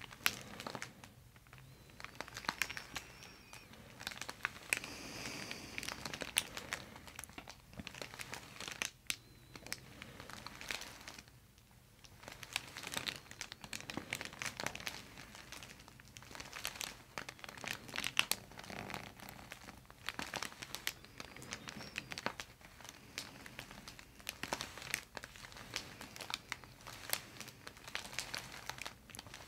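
Soft, irregular crinkling and rustling as hands hold and gently pull a person's head on a paper-covered headrest during neck traction, the paper and hair rubbing close to the microphone.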